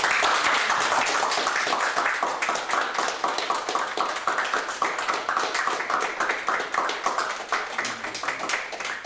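Applause from a small group of people, starting abruptly and thinning out toward the end.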